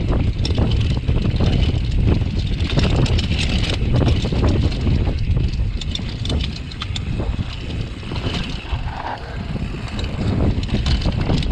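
A downhill mountain bike running fast down a dry dirt trail: wind buffets the camera microphone with a heavy rumble, the tyres scrub over loose dirt and stones, and the bike rattles with many small knocks over the bumps. The noise eases a little a few seconds past the middle.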